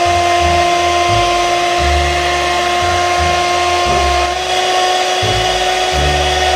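Electric hand mixer running steadily, its beaters churning a mixture in a plastic bowl, with a steady motor whine that steps up slightly in pitch a little past halfway.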